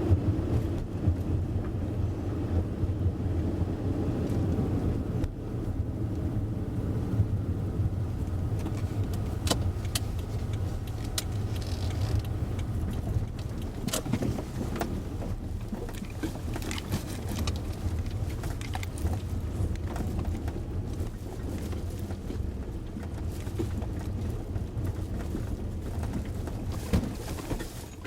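A car driving, heard from inside the cabin: steady low engine and tyre rumble, with scattered sharp clicks and knocks in the middle stretch.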